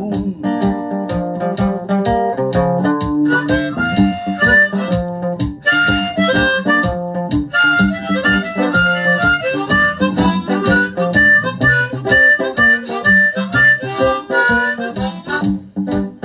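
Blues harmonica playing over a looped acoustic-guitar rhythm and a steady drum beat from a Boss loop pedal.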